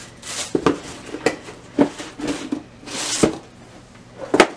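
Shoes and cardboard shoeboxes being handled: rustling and a series of short knocks, the loudest near the end.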